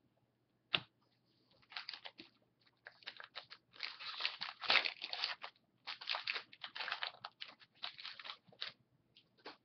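A trading-card pack and its cards being handled: crinkly wrapper and stiff cards rustling and sliding against each other as they are pulled out and flipped through. There is a sharp click just under a second in, then a dense run of dry crackles for most of the rest.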